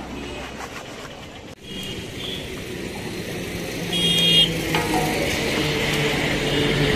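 Road traffic running by, with a short high beep about four seconds in, after which the sound gets louder and stays steady.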